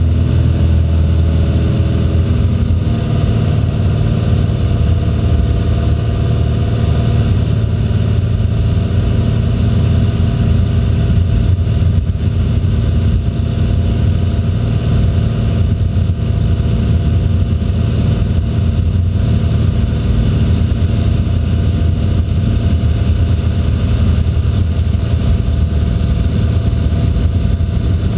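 A Cessna 172's piston engine and propeller running steadily in flight, heard from inside the cockpit.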